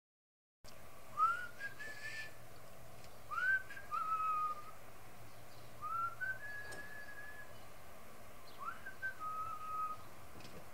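Whistling: four short phrases, each a quick upward-sliding note followed by a held note, coming about every two and a half seconds over a faint low hum.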